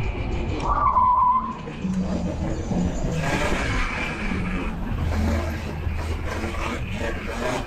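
E-bike riding on city pavement: steady tyre and wind noise, with a short squeal about a second in.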